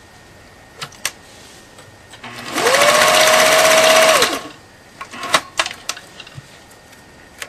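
Pfaff 1222 sewing machine stitching through five layers of denim: the motor whines up to speed about two seconds in, runs steadily for about two seconds and winds down. It goes straight through the thick stack without labouring. A few light clicks of the fabric being handled come before and after.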